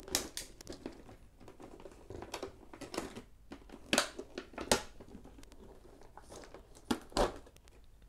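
Clear plastic blister cover of a collectible figure's packaging crinkling and crackling as it is handled and lifted off the tray, in a string of irregular sharp crackles, the loudest about four to five seconds in and again near the end.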